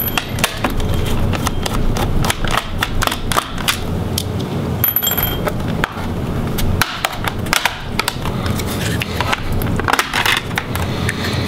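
Phillips screwdriver loosening the screws of a plastic laptop's bottom access covers, with the covers being prised up by hand: a run of small sharp clicks and ticks over low handling rumble.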